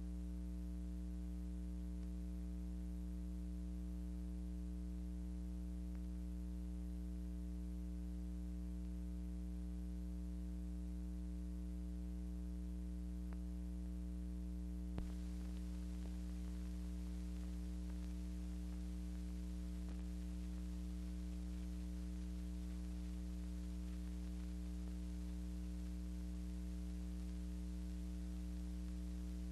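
Steady electrical mains hum with a light hiss, the background noise of a silent film transfer. A single short click about halfway, after which the hiss is slightly brighter.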